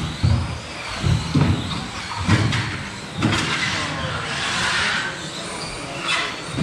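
1/10 scale 2WD electric off-road RC buggies racing on astroturf: high motor whines rising and falling as they accelerate and brake, with several dull thuds scattered through.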